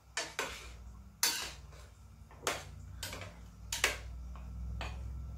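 Metal spoon stirring stew in a stainless steel pot, clinking against the pot's side about six times, the loudest a little over a second in. A low steady hum runs underneath.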